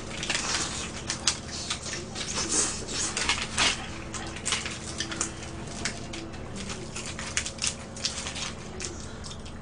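Close-up eating sounds of fried chicken being torn apart by hand on its paper wrapper and chewed. There are irregular crackles, rustles and wet smacks throughout.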